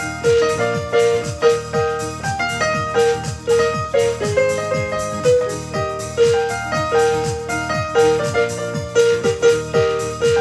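Instrumental music: a keyboard melody of short struck notes over a steady beat with repeated falling low drum notes.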